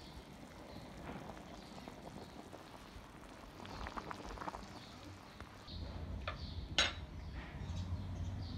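Chicken soup bubbling at a rolling boil in a pot, faint. About two-thirds of the way through a steady low rumble comes in, and shortly after there is one sharp clink.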